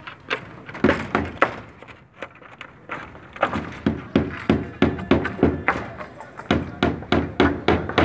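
Hammer blows on a construction deck of rebar and wooden formwork: a few strikes, a pause of about two seconds, then steady strikes about three a second.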